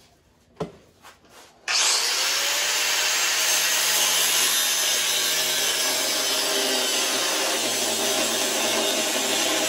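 Angle grinder with an abrasive cutoff wheel starting up a little under two seconds in and cutting through the go-kart's metal axle mounts, a loud, steady cutting noise that holds at an even level. A few faint clicks come before it starts.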